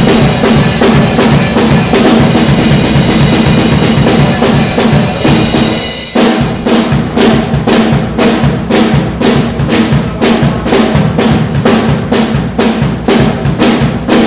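Acoustic drum kit played loudly: busy, dense playing with crashing cymbals for the first several seconds, then a steady beat of separate hits at about three a second.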